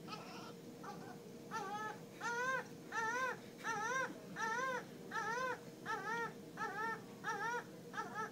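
Newborn baby crying: a rhythmic run of short wails, each rising and falling in pitch, about one every half second or so, starting about a second and a half in. A steady faint hum runs underneath.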